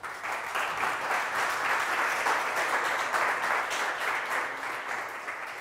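Audience applauding, with many hands clapping at once; the applause swells quickly and dies down near the end.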